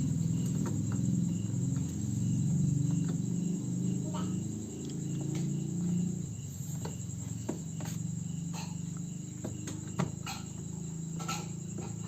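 Crickets chirping steadily in a high, fast pulse over a low hum, with scattered sharp clicks and knocks, more of them in the second half.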